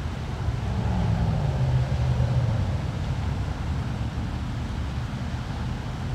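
Low rumble of road traffic, swelling about a second in as a vehicle passes, then settling to a steady hum.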